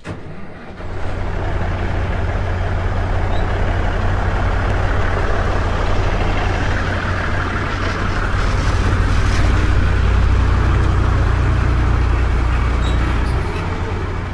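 Volvo EC210CL excavator's diesel engine running steadily, with a broad rushing noise over its low drone that grows a little louder past the middle and then cuts off abruptly.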